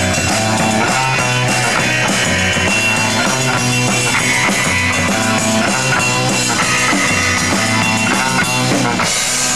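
Live rock band playing: electric guitars over a drum kit keeping a steady beat, with a bright crash near the end.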